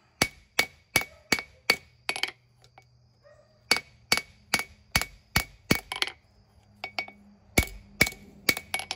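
Blacksmith's hand hammer striking a leaf-spring steel knife blank on an anvil, each blow ringing high and metallic. The blows come in three quick runs of about two or three a second, with short pauses between the runs, as the blade is drawn out to length.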